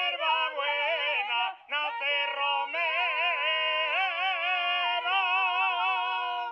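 A high voice singing a song, with wide, wavering vibrato on long held notes and a short break about one and a half seconds in; no instruments can be made out beneath it.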